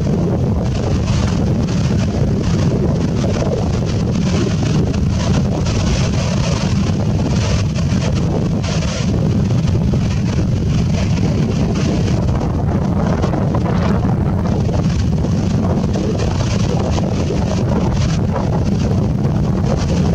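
Steady wind noise buffeting the microphone, over the wash of surf breaking on the beach.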